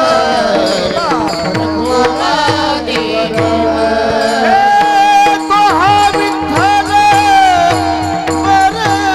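Devotional abhang singing: a man's voice drawing out long, ornamented notes over a steady held drone and regular hand-drum beats.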